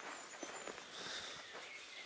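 Soft footsteps on a forest floor of earth and pine needles, over faint outdoor ambience.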